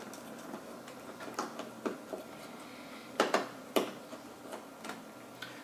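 Irregular light clicks and ticks of a small Torx screwdriver turning the retention-frame screws of a Threadripper TR4 CPU socket, the sharpest few clicks coming about three seconds in.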